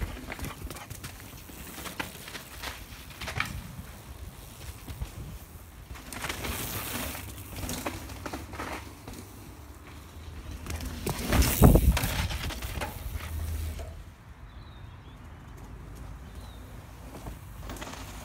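A mountain bike and a running dog passing on a rocky dirt trail: tyres and paws crunching over loose stones in several swells, the loudest pass about twelve seconds in, with wind rumbling on the microphone.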